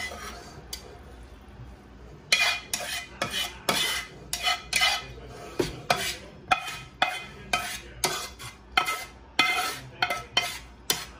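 A spatula scraping and knocking food out of a nonstick frying pan into a stainless steel pot: after a quieter first two seconds, a run of sharp clanks with a metallic ring, about two or three a second.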